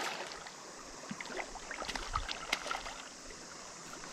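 Shallow river running over stones, with light irregular splashing from a hooked rainbow trout thrashing at the surface.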